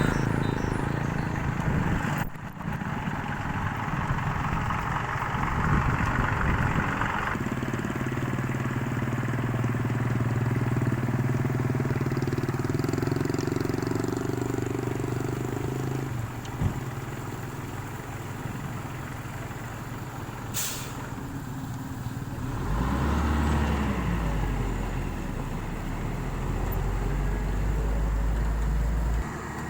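Heavy vehicle engines running, truck-like, with a steady low hum that changes abruptly several times. Near the three-quarter mark an engine's pitch rises and falls once.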